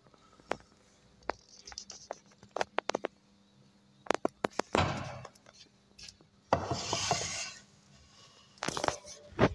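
Scattered light clicks and knocks, with two short rubbing scrapes about five and seven seconds in.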